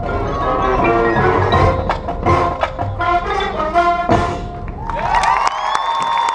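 Marching band music with mallet percussion and drum hits, ending about five seconds in, when crowd applause and whistling break out.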